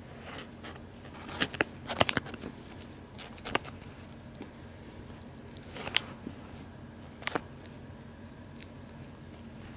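Close-up handling noise: scattered sharp crackles and rustles, a few louder clicks among them, as a damp tissue is rubbed on a newborn kitten to stimulate it to relieve itself.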